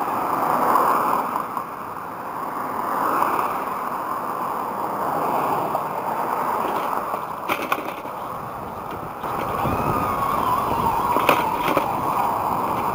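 Wind noise on a bicycle-mounted camera and tyres rolling over a gravel road shoulder, with a couple of sharp knocks. Passing traffic adds a heavier rumble from about two-thirds of the way in.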